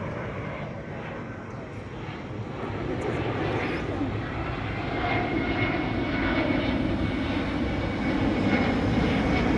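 Fixed-wing aircraft engine running, its noise growing steadily louder as the aircraft nears, with a faint steady high whine joining about halfway through.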